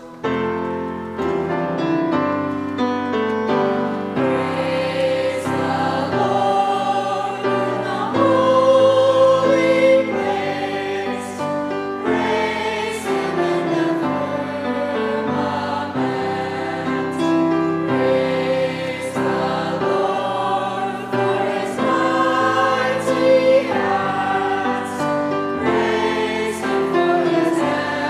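A choir singing a song, with steady low notes underneath.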